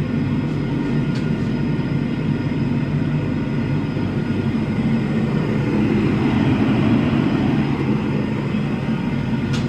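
Small gas forge burner running steadily with a loud, even rushing noise, swelling a little partway through, as a forged leaf is reheated in it.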